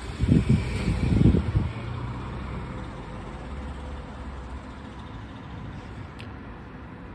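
Thunder: a loud, rough low rumble in the first couple of seconds that rolls on and fades away over the next few seconds.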